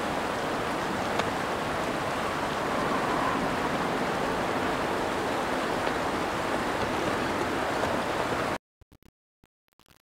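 Steady rush of flowing stream water, cutting off abruptly about eight and a half seconds in.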